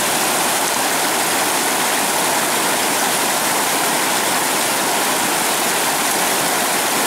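Shallow mountain stream rushing over rocks, a steady, loud wash of water.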